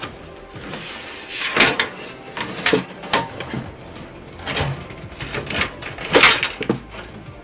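Hands handling PC case parts: a series of clunks, knocks and rattles of plastic and metal, the loudest about one and a half and six seconds in.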